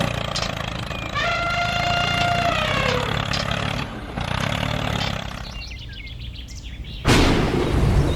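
A small engine running steadily, with a held pitched tone lasting about a second and a half that falls slightly at its end. A sudden, louder noise starts about seven seconds in.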